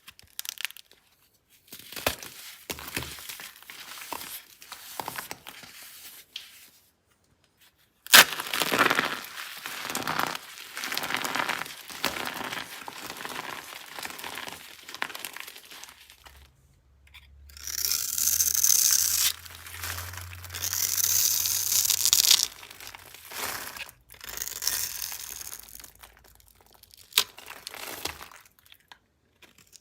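Dry soap being crushed and broken up, crackling and crunching in irregular bursts, with a sharp crack about eight seconds in.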